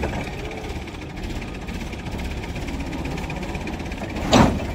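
Massey Ferguson 240 tractor's three-cylinder diesel engine running steadily. A short, loud bang or clank cuts in near the end.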